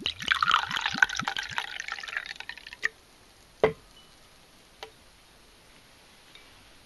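White wine poured from a bottle into a glass, glugging quickly for about three seconds. Then a sharp knock and, a second later, a lighter one.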